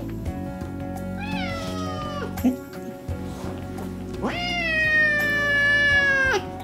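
Domestic cat yowling at a dog: a short falling yowl, then a long drawn-out one that drops off at the end. It is the cat's uncomfortable warning for the dog to back off. Background music underneath.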